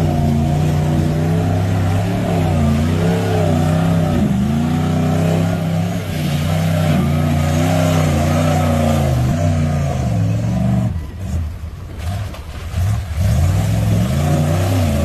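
Chevrolet pickup's engine revving up and down again and again as its tyres spin in thick mud. The revs sag briefly about eleven seconds in, then climb again.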